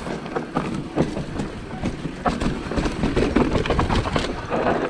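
Mountain bike rattling and knocking as it rides down a rough dirt trail, with frequent sharp clacks from the bike over bumps and a constant rushing noise.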